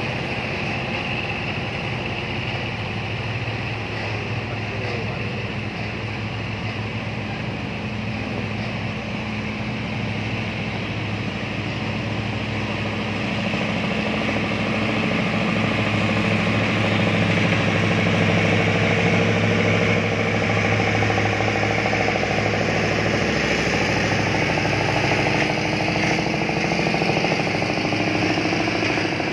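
Heavy truck engines running with a steady low hum that grows louder about halfway through as a truck comes closer.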